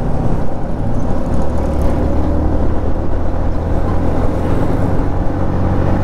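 Motorcycle riding at a steady speed: the engine's steady hum under a constant rush of wind noise.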